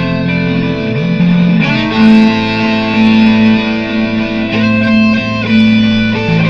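Electric guitar playing an improvised solo over looped guitar layers: held, overlapping notes, with slides between pitches in the first two seconds.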